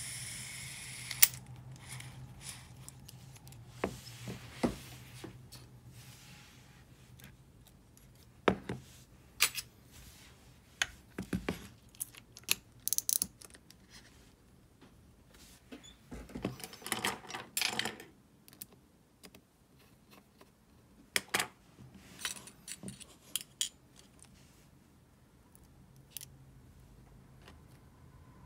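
Scattered metallic clicks, taps and small knocks from a Shimano Calcutta Conquest 400 baitcasting reel being handled and reassembled, with a short run of rapid clicks past the middle; near the end a screwdriver works on the handle.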